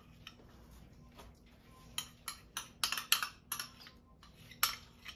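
Spoon clinking and scraping against a small bowl as seasoning is spooned out of it: a run of sharp, irregular clinks, about two or three a second, starting about two seconds in.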